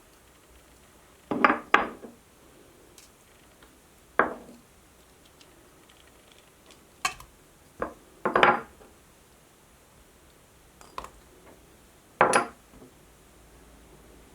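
Kitchen utensils and dishes clinking and knocking: a handful of short, separate clatters a second or more apart, with quiet between them.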